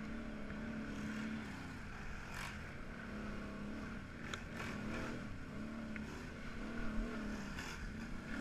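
Can-Am Renegade 1000 ATV's V-twin engine running under race throttle, its pitch rising and falling again and again as the throttle is worked, with a few short knocks and scrapes.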